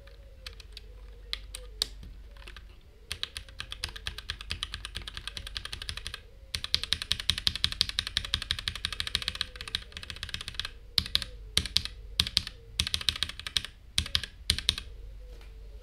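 Noir N1 Pro mechanical keyboard fitted with budget linear switches being typed on: a few separate keystrokes, then two long runs of fast typing, then a string of single hard key presses and short flurries near the end.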